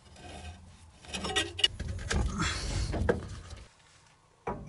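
Handling noise from work on an old gas pipe: rustling and scraping with a few knocks and one sharp click about one and a half seconds in. It stops briefly near the end, then a sudden knock comes at the very end.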